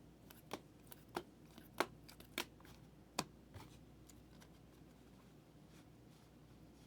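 Trading cards being handled and flipped through, giving about seven short, sharp clicks over the first three and a half seconds, then only a faint steady background.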